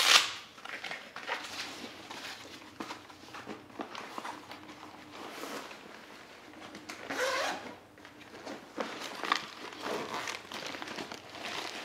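A zippered fabric travel bag being handled and opened: nylon rustling and a zipper being drawn, with scattered small clicks from its hardware.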